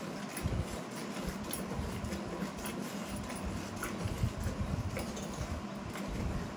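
Milk squirting into a steel pail as a cow is milked by hand, in quick irregular streams, over a faint steady hum and low rumble.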